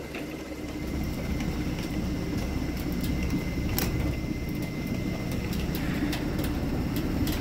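Electric boat lift motor running steadily as it lowers the boat on its cables: a low hum with a faint high whine, growing a little louder about a second in.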